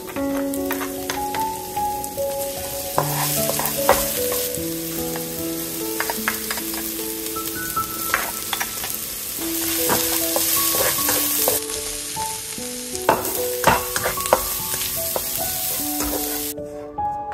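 Onion, ginger, garlic and Chinese sausage sizzling in hot oil in a wok as they are stir-fried, with scattered taps and scrapes of the spatula and of ingredients dropping in. A slow, gentle melody plays underneath, and the sizzle cuts off shortly before the end.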